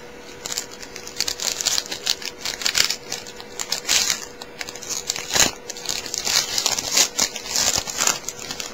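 Trading card pack wrapper being crinkled and torn open by hand, an irregular run of crackling and crinkling with one sharper crack just past the middle.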